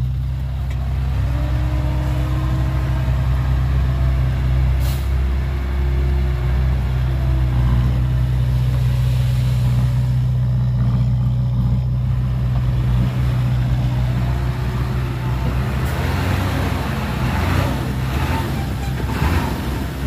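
Hyundai dump truck's diesel engine running steadily while the hydraulic hoist raises the bed to tip its load of soil. Irregular rattles and knocks come in over the last few seconds.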